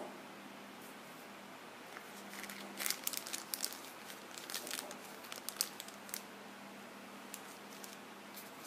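Crinkling plastic packaging with a quick run of small clicks and crackles as the earphones and their clear plastic carry case are handled, from about two seconds in until about six seconds, over a faint steady hum.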